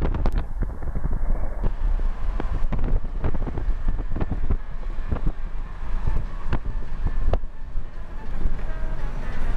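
Wind buffeting the microphone in gusty thumps over the low rumble of a moving car.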